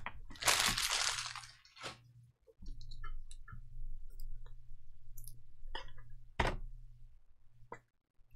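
Trading cards being handled and sorted: a rustling swish in the first second or so, then scattered light clicks and taps, over a low steady hum.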